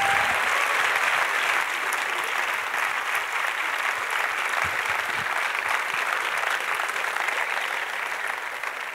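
Audience applauding: the many-handed clapping of a full hall, slowly growing quieter.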